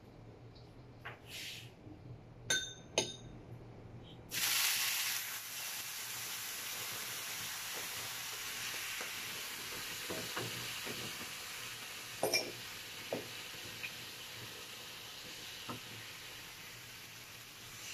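A few clinks of metal pans, then about four seconds in a sudden loud sizzle of hot oil in a frying pan over a gas flame, hissing steadily and slowly dying down, with a couple more clinks of cookware.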